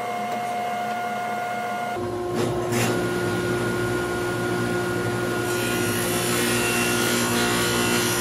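Table saw with a dado blade running, a steady motor hum. The hum changes pitch about two seconds in, followed by two short knocks, and a rougher hiss joins from about halfway as the blade cuts a rabbet along the wooden frame stock.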